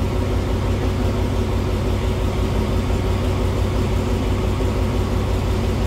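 Diesel train engine running steadily, a low even drone with a constant hum.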